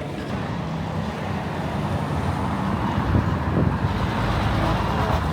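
Road traffic on a town street: motor vehicles running past close by, a steady noise with a low engine hum that grows a little louder in the second half.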